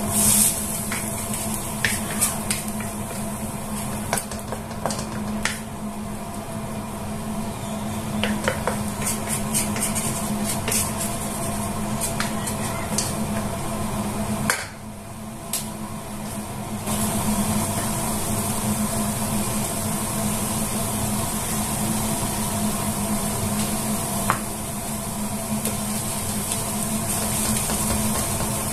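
Kitchen food-preparation sounds: scattered clicks and clinks of utensils against dishes, over a steady hum.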